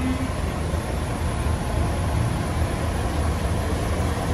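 Heavy diesel truck engine idling steadily.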